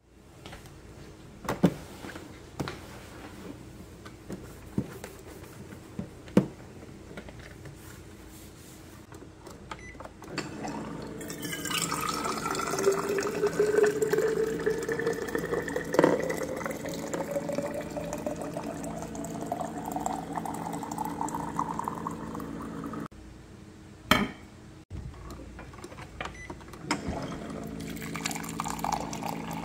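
Hot water pumped from a Zojirushi electric water boiler pot into a thermos flask, the pitch of the stream rising steadily as the flask fills. A few sharp clicks come before the pour, and another near the end, followed by water running into a glass.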